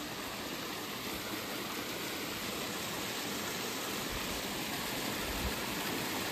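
A clear mountain river rushing over a small waterfall: a steady, even rush of water that grows slightly louder.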